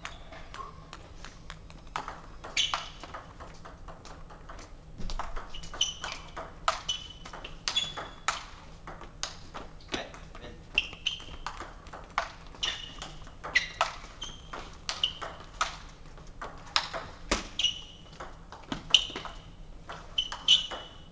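Table tennis ball clicking back and forth off rackets and table in a practice rally, a quick run of sharp pings with a short ring off the tabletop. The clicks are scattered at first and settle into a steady rally about five seconds in.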